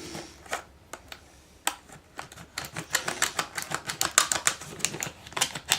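Stiff plastic blister packaging around a padlock crackling and clicking as it is handled. The crackles are sparse at first, then come rapidly from about two seconds in.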